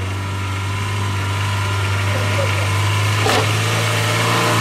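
Off-road 4x4's engine idling steadily, with a single sharp click or knock a little over three seconds in.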